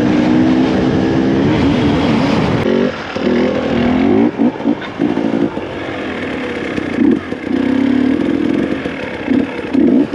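Dirt bike engine heard from on the bike as it is ridden, running at steady revs for about the first three seconds, then revving up and easing off again and again in short throttle blips.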